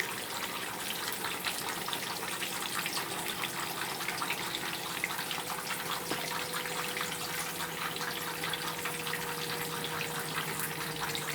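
Strips of tofu skin frying in hot oil in a pan: a steady sizzle of fine crackles, with a faint steady hum underneath.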